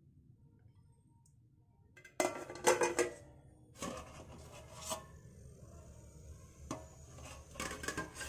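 Stainless steel plate used as a pan lid being handled and shifted on the pan: metal clattering and scraping, loudest about two seconds in, with a few lighter clinks and scrapes after.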